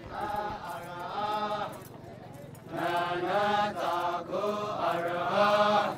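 Naga men chanting in unison, long held notes in phrases; a louder phrase begins about three seconds in.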